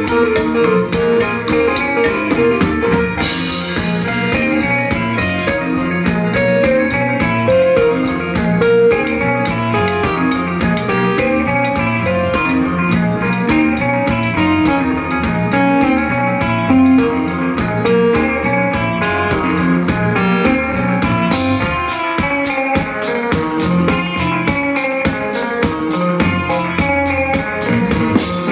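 Live rock band playing: electric guitar, electric bass, keyboards and drum kit keeping a steady beat, with a cymbal crash about three seconds in and another about three-quarters of the way through.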